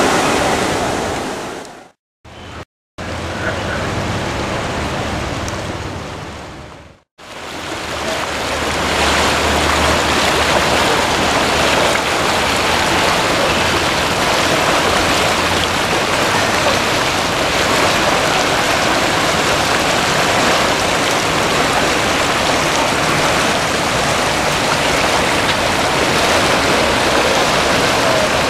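Ganges river water rushing steadily, a continuous roar of moving water that cuts out to silence briefly twice near the start, about two and seven seconds in.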